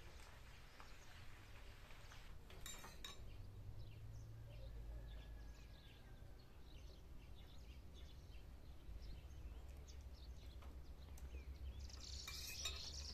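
Quiet, steady low hum with faint scattered ticks. Near the end, a short scrape and clink of a metal fork against a plate.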